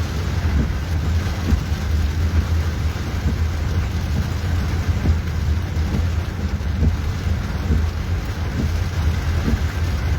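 Rain and vehicle noise: a steady low rumble under an even hiss, with faint scattered taps.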